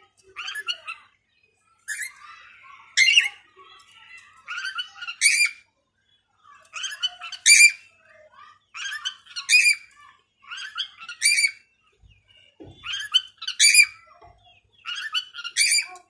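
Rose-ringed parakeet giving repeated shrill, harsh squawking calls in short clusters of two or three notes every second or two, with a brief pause near the middle.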